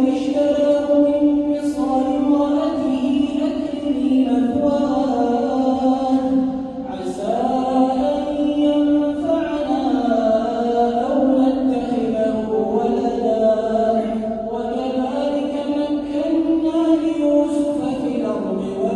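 A man's voice reciting the Quran in a melodic chant, holding long notes with gliding, rising and falling pitch.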